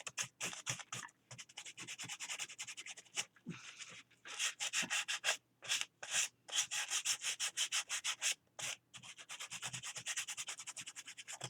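Paper page edges of a thick glued book being sanded by hand, quick back-and-forth scratchy strokes several a second, with a few brief pauses between runs.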